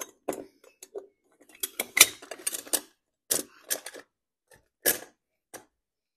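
Metal clinks and knocks as a stainless-steel slip-wheel bracket is fitted by hand onto bolts through a boat's wooden transom. The short, sharp hits come in a loose cluster, loudest about two seconds in, then a few scattered taps.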